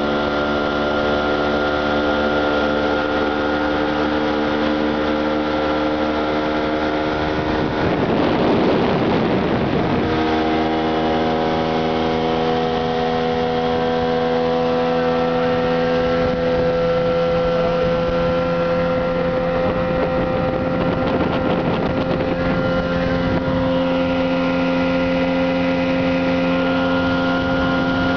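Motorboat engine running steadily at speed, with water rushing along the hull. About eight seconds in, a rush of noise swells for a couple of seconds. After that the engine note settles at a slightly different pitch.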